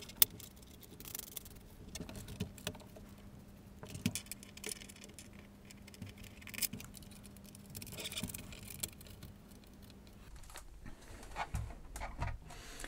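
Light handling noises as a BBC Micro's keyboard assembly is settled back into its plastic case: scattered clicks, taps and rustles, with one sharp click just after the start.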